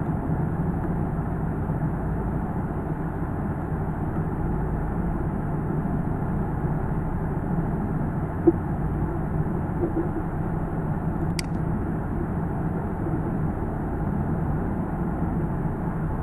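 Steady low background rumble with one short, sharp click about two-thirds of the way through.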